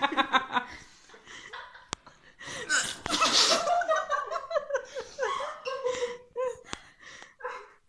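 A woman with hiccups laughing in breathy, giggling fits, with a loud breathy burst about three seconds in and a few short sharp hiccup clicks between the laughs.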